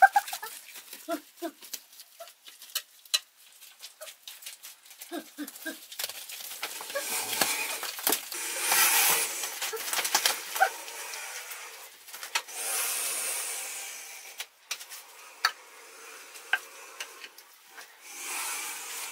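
Bare feet squelching and slapping through wet mud, with scattered clicks and knocks and longer stretches of wet, sloshing mud noise in the middle. A few short pitched animal calls come near the start and about five seconds in.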